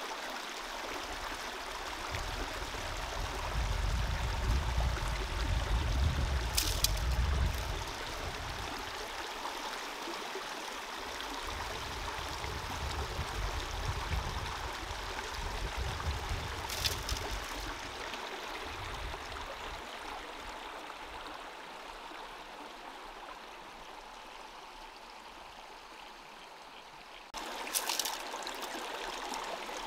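Creek water running steadily, with a low rumble swelling twice in the first half and three short high clicks spread through.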